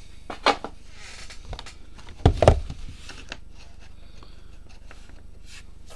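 Hands handling trading-card boxes and packs on a table: a few short, scattered clicks and rustles, with a louder double knock about two and a half seconds in.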